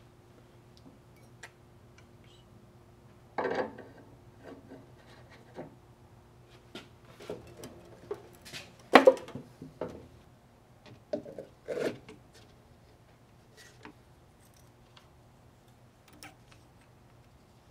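Scattered metal clinks, taps and scrapes of hand work on a car steering rack: an inner tie rod being threaded on and tightened with an adjustable wrench, then a rubber boot and clamp being fitted. The loudest clanks come in a cluster about nine seconds in, over a faint steady hum.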